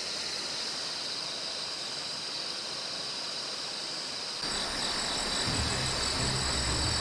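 Steady outdoor background hiss; about four and a half seconds in, background music with a low beat comes in over it.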